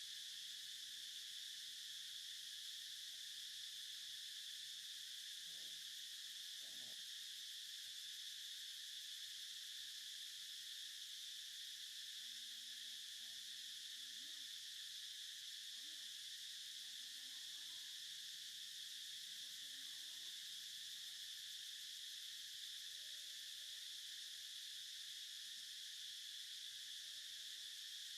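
A steady, unbroken high-pitched drone of insects, with a few faint, brief low sounds underneath.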